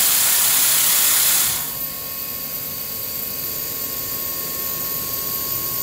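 Averex HS-630i horizontal machining center running: a loud hiss cuts off abruptly about a second and a half in. After it comes a quieter steady machine hum with a constant high whine.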